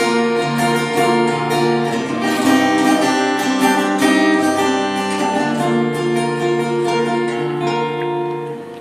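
Instrumental interlude of a live worship band: acoustic guitar strumming held chords over a sustained bass and keyboard pad, fading slightly near the end.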